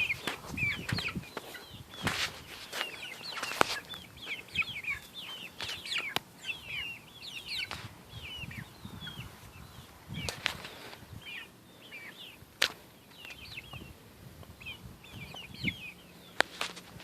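Chickens making many short, falling chirps throughout, with scattered sharp clicks and knocks.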